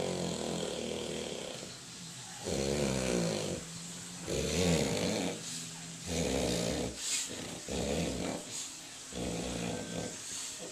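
A sleeping man snoring loudly, a rough, pitched snore on each breath, coming about every second and a half.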